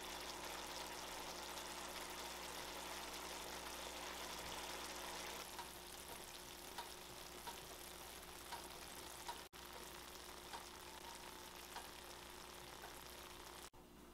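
Minced pork and chili bean sauce sizzling in a frying pan, stirred with a silicone spatula. After about five seconds it gives way to a quieter simmer with scattered small pops as the mapo tofu cooks in its sauce.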